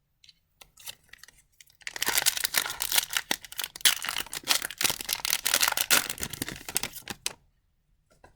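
An Upper Deck MVP hockey card pack's wrapper being torn and crinkled open, a dense crackling that lasts about five seconds, after a few faint ticks.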